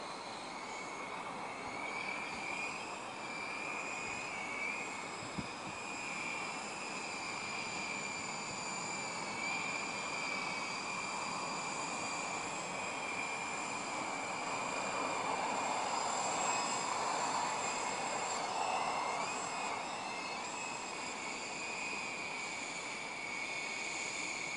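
Syma S33G radio-controlled toy helicopter in flight high overhead: a steady high-pitched whine from its motors and rotors that wavers slightly in pitch, over an even rushing haze that swells a little about two-thirds of the way through.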